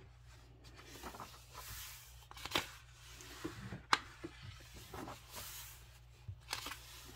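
Pages of a coloring book being turned: soft paper rustles and a few sharp page flicks, over a steady low hum.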